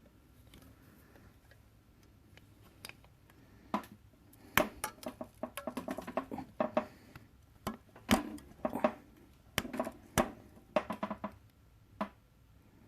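Sharp metallic clicks and clinks with a short ring, in irregular clusters starting a few seconds in: steel tools and valve-train parts being handled while a valve spring and its keepers are fitted on a cylinder head.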